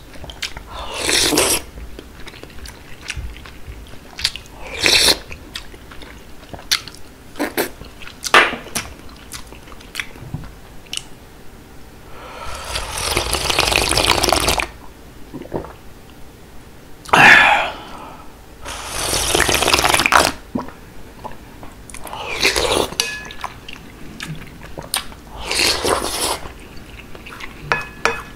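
Close-up sounds of a person eating beef seaweed soup with rice and noodles: wet chewing, small spoon clicks, and several loud slurps. Two long slurps come in the middle, one of them drinking broth straight from the bowl.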